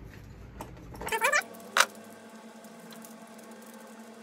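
Steel bearing race and socket driver being handled on a workbench: a short rising squeak about a second in, then a single light metallic click, over a faint steady hum.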